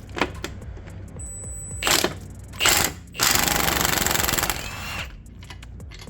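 Impact wrench hammering loose the Loctite-treated hub bearing bolts on a Chevy S-10 Blazer's front hub. Two short bursts, then a longer run of about a second and a half.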